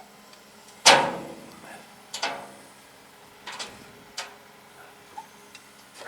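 Several sharp crashing knocks of a boat being broken up for scrap: the loudest about a second in, with a short ringing tail, then lighter hits about every second.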